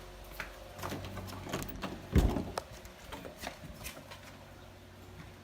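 A series of light clicks and knocks from things being handled and moved, with one heavier thump about two seconds in.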